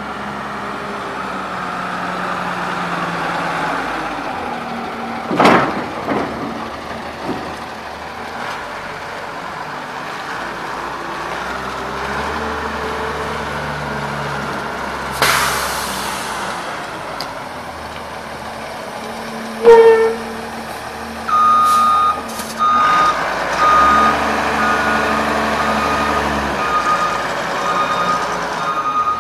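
Hyster H280XL forklift engine running as the truck drives and turns, with a couple of sharp knocks and a short hiss along the way. About 20 s in there is a short loud tone, and from about a second later its reversing alarm beeps steadily as it backs up.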